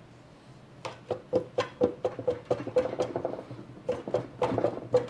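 Repeated sharp metal-on-metal taps, about four a second, each leaving a short ring, with a brief pause past the middle: the Coleman axle's hub assembly being knocked to work it loose from the housing.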